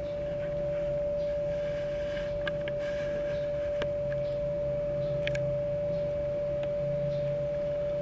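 GMC FC06-70B mini ceiling fan (700 mm, about 28 inches) running: a steady high-pitched motor hum over a low drone that swells and fades, with a few faint ticks.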